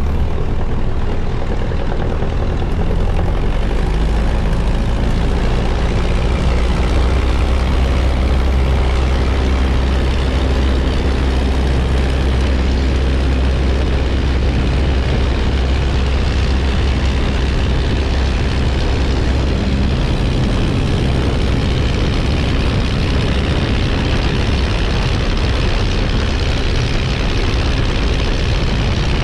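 Miles Magister's single propeller engine, a de Havilland Gipsy Major, running steadily. The engine note steps up about three seconds in, and its deepest tones weaken after about twenty seconds.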